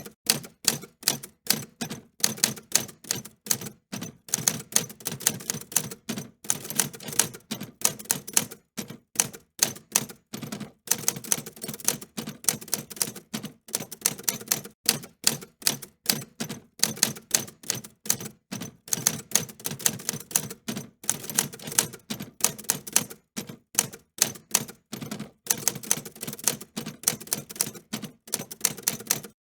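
Typewriter keys being typed: a fast, uneven run of sharp clacks, several a second, broken by brief pauses.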